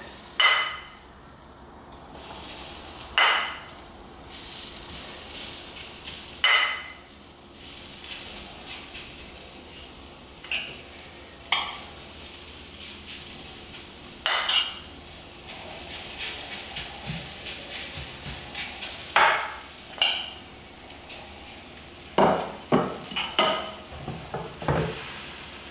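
A metal spoon clinking and scraping every few seconds as potato-pancake batter is scooped from a ceramic bowl into a sandwich maker, with a bunch of quicker scrapes near the end. Underneath, a faint steady sizzle of the batter on the sandwich maker's hot, unoiled plates.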